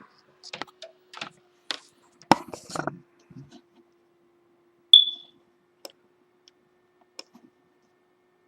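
Clicks and knocks of a computer keyboard and mouse being worked, a cluster in the first three seconds and a few scattered ones later. A single short high beep sounds about five seconds in, the loudest sound, over a faint steady hum.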